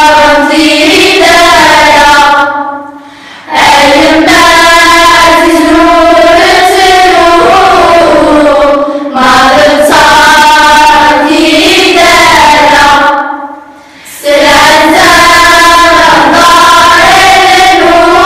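Children's choir singing together in long sung phrases, with two short breaks between phrases, about 3 seconds in and again near 13 seconds.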